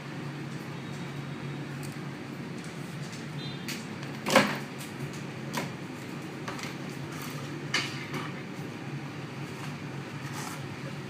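A few sharp clicks and taps of small hard parts being handled, the loudest about four seconds in, over a steady low hum.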